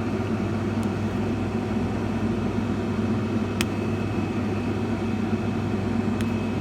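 A steady low mechanical hum from a running appliance. One sharp click comes about three and a half seconds in, and a faint thin high tone sits over the hum after it.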